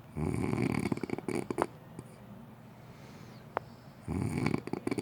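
A sleeping person snoring: two snores about four seconds apart, each lasting more than a second.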